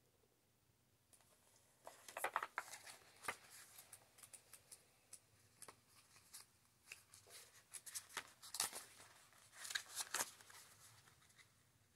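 Pages of a small paperback guidebook being leafed through by hand: irregular papery rustles and crackles starting about two seconds in, with a few louder flicks near the end.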